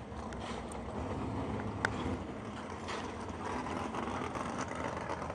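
Muscle-car engines idling at warm-up, a steady low rumble, with a single sharp click a little under two seconds in.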